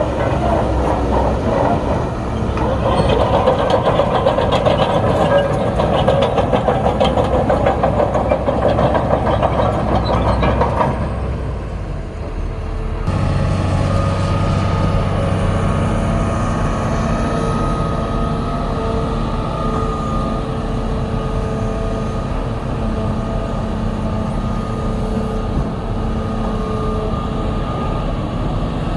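Heavy diesel earthmoving machinery working: an engine under load with a fast rattling clatter for roughly the first ten seconds, then, after a sudden change, a steadier diesel engine running at an even pitch.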